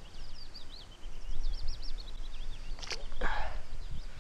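Small songbirds singing in quick trills and chirps over a low rumble on the microphone. About three seconds in, a sharp click and then a short splash as a small hooked fish thrashes at the water's surface.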